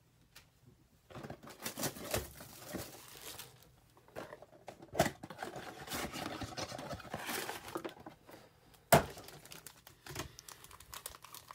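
Cardboard trading-card box being torn open and its foil-wrapped card packs crinkling as they are pulled out and handled. A sharp knock about nine seconds in.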